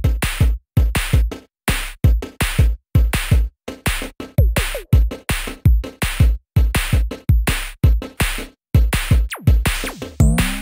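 Electronic background music with a punchy drum-machine beat and deep kick-drum thumps, with a brief sliding-pitch effect near the end.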